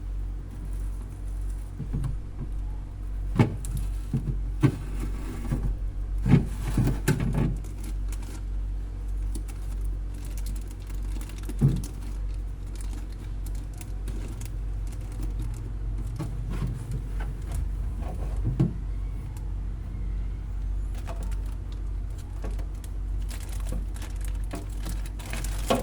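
A steady low hum, with occasional knocks and clatter of parts being handled, the sharpest about three and a half seconds in, around seven seconds in and near twelve seconds in.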